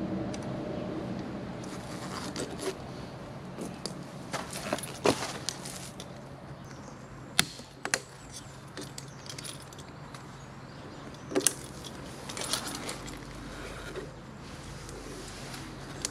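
Metal hand tools clinking and clicking as a wrench works at a tight bolt on a scooter's variator cover: scattered sharp metallic clicks several seconds apart.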